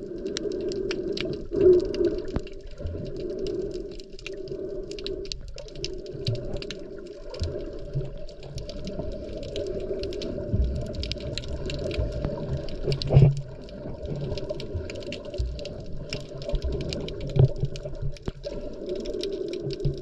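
Muffled underwater sound while snorkelling: a steady dull hum, fine crackling clicks throughout, and a few dull low knocks.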